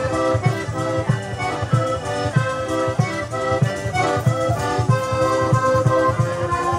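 Live southern Italian folk dance music: an accordion plays a melody over a fast, steady drum beat.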